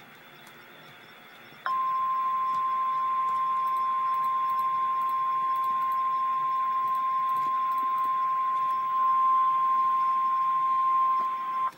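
Emergency Alert System attention tone: a single steady tone near 1 kHz, the 1050 Hz warning alarm tone of NOAA Weather Radio, starting suddenly a couple of seconds in after faint hiss and holding for about ten seconds before cutting off. It signals that a warning message is about to be read.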